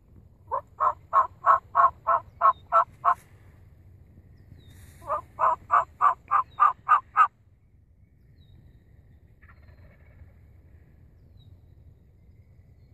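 Two runs of hen turkey yelps from a turkey call, about ten evenly spaced notes in each, loud and close. The second run comes about two seconds after the first.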